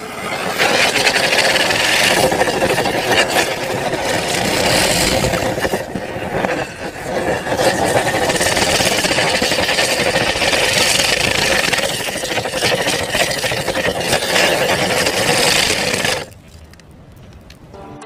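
Two chakri ground-spinner fireworks burning inside a stainless-steel pressure cooker: a loud, continuous, crackling hiss as they spin and knock about against the pot's walls. About 16 seconds in it drops sharply to a much fainter hiss.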